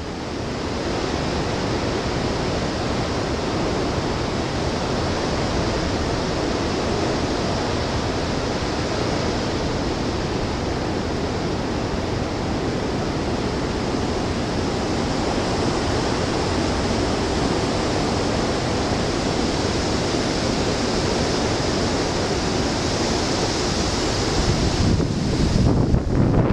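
Hurricane Sandy's winds blowing hard and steadily, a dense rushing noise, with a stronger gust buffeting the microphone near the end.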